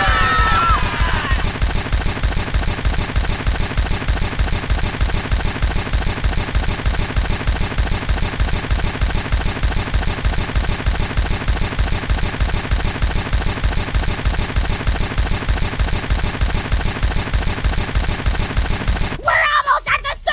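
Broken, glitching playback audio: a short snippet repeats rapidly and evenly like machine-gun fire, then cuts off abruptly near the end. A few squeaky gliding tones sound in the first second or so.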